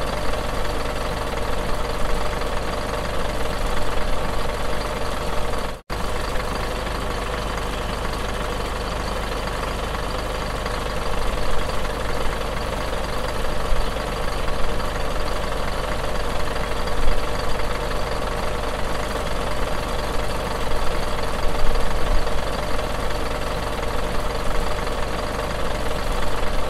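Bus engine idling steadily, with a momentary dropout about six seconds in.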